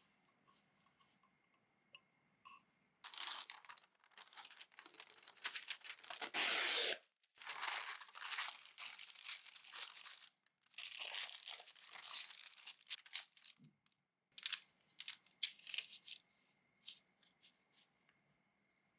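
Crinkling and tearing, as of paper or plastic being handled, in several bursts of a second or two each. A run of short light ticks follows near the end.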